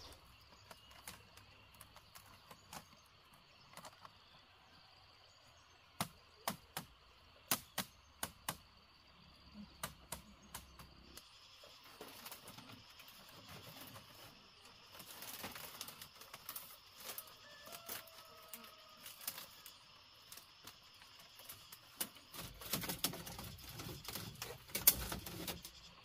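Split bamboo strips clicking and knocking against bamboo stakes as a fence is woven by hand: irregular sharp clicks, with a run of them a few seconds in and a denser clatter and rustle near the end.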